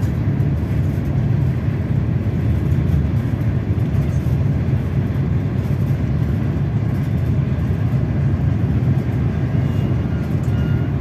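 Steady low rumble of a high-speed passenger train running at speed, heard from inside the cabin.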